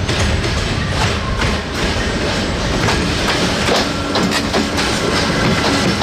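Freight train of tank wagons hauled by an electric locomotive passing close by: a steady rumble with repeated clacking of the wheels on the rails. A faint steady hum joins in about three seconds in, as the locomotive goes past.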